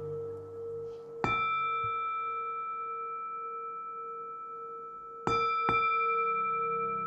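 Slow meditation music: a struck bell-like chime rings out about a second in and again twice in quick succession near the end, each strike ringing on for seconds. Underneath is a held tone, with a soft low pad that fades and then swells back in.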